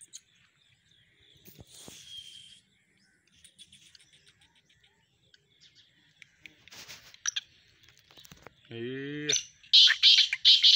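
Black francolin calling: a loud, harsh series of rapid, grating pulses near the end, after scattered faint chirps.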